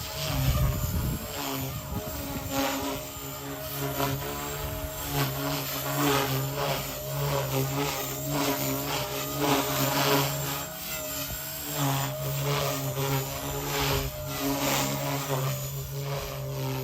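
Blade Fusion 180 SMART micro RC helicopter in flight: its electric motor and rotor blades run continuously as a steady whirring hum, the pitch wavering slightly with throttle.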